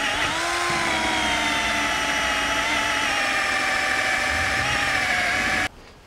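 Cordless drill spinning a rubber caramel (eraser) wheel against a chrome handlebar to strip off a sticker: a steady motor whine whose pitch slowly drops as the wheel rubs, cutting off suddenly near the end.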